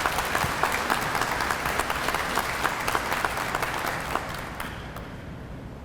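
Audience applauding: many hands clapping, thinning out and stopping about four and a half seconds in.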